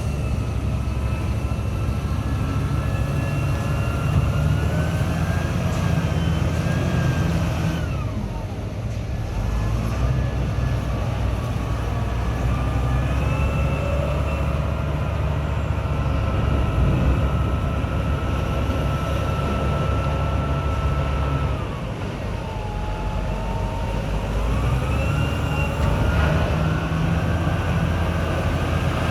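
Wheel loader's diesel engine running under load, revving up and down with a whine that rises and falls with engine speed. The engine drops back about eight seconds in and again near twenty-two seconds, then revs up again.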